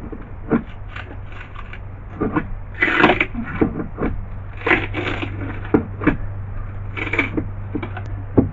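Irregular knocks and cracks with three louder crunches, about 3, 5 and 7 seconds in, as the fiberglass-covered plywood boat floor is pried up and broken apart.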